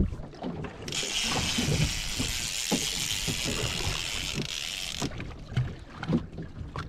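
Fishing reel's drag buzzing steadily for about four seconds as a hooked fish pulls line off against it, starting about a second in and cutting off sharply. Low knocks and thumps from the boat and water run underneath.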